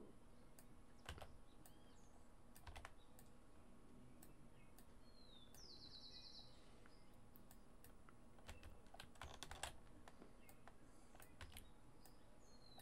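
Faint, scattered clicks of a computer keyboard and mouse, a few seconds apart, over quiet room tone, with a brief high chirp about halfway through.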